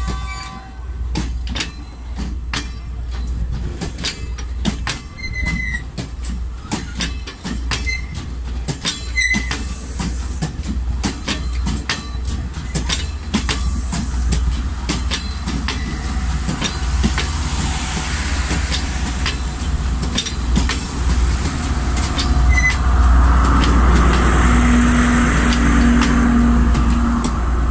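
Class S14 diesel multiple unit rolling past, its wheels clacking over the rail joints with a few short squeals. Near the end the diesel power car passes close, adding a louder, steady engine drone.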